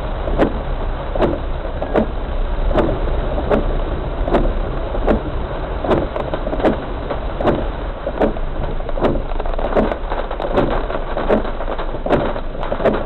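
A steady mechanical hum with a sharp click or knock repeating about every 0.8 seconds.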